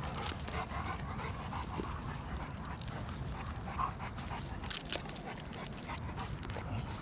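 Large dogs play-wrestling, with faint panting and whimpering and a few short clicks and scuffles over a low outdoor rumble.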